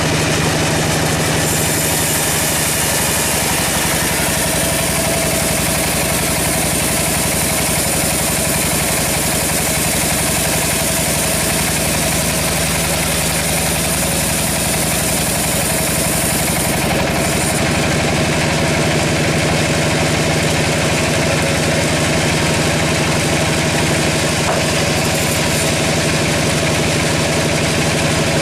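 Sawmill machinery running: a steady engine drone with a strong low hum. A high hiss joins about a second and a half in and stops about seventeen seconds in.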